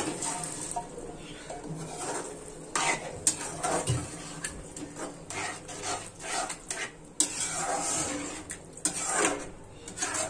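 A metal spoon knocking and scraping against a steel kadai as boiled chickpeas are tipped in and stirred into the masala, with repeated clinks and scrapes throughout.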